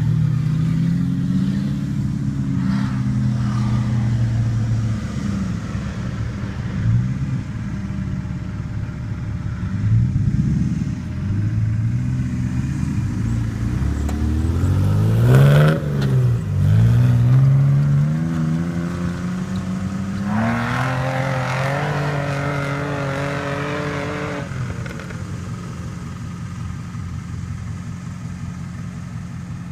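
Off-road vehicle engine running under varying load, its pitch rising and falling as it is revved, climbing sharply to a peak about halfway through and dropping away, then holding a higher pitch for a few seconds before settling lower near the end.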